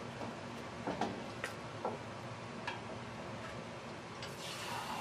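A wooden spoon stirring minced meat and potatoes in a steel pot, with a handful of light knocks of the spoon against the pot in the first three seconds. A steady hiss from the pot sets in near the end.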